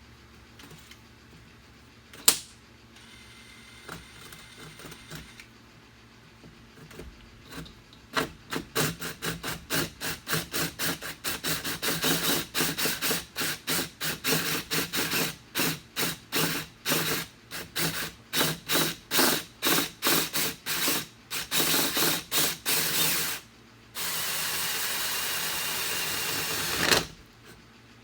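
Cordless drill driving a hole saw to cut a hole in the door, run in rapid short pulses, two to three a second, for about fifteen seconds, then held on steadily for about three seconds near the end. A single sharp click comes before the cutting starts.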